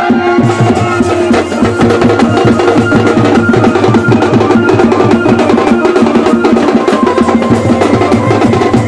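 Loud folk drumming, fast and dense, with steady held tones under the beat.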